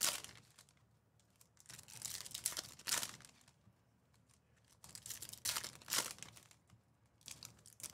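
Foil wrappers of trading-card packs being torn open and crinkled by hand, in several bursts of crackly rustling a couple of seconds apart.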